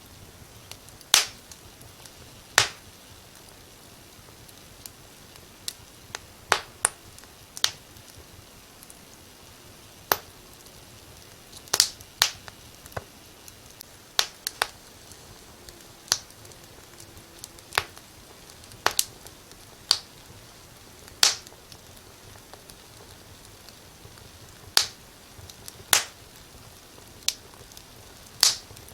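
Wood fire crackling in a fireplace: sharp irregular pops and snaps, about twenty scattered unevenly, over a faint steady hiss of the flames.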